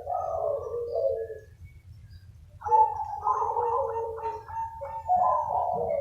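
Several zebra doves cooing, their rapid, stuttering coo phrases overlapping as the birds answer one another. The cooing pauses briefly about a second and a half in, then resumes in a long, unbroken run.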